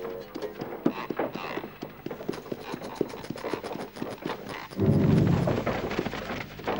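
Horses' hooves clopping in a quick run of many sharp strokes. About five seconds in, a loud low rumble comes in.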